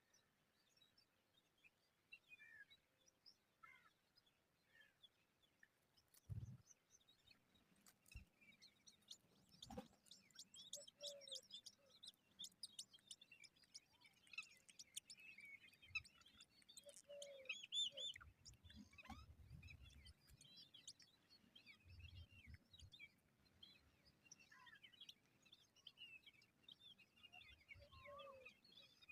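Faint, scattered chirping of small birds, a mother bird and her chicks, growing busy and rapid through the middle stretch. A few lower calls and some soft thumps come in between.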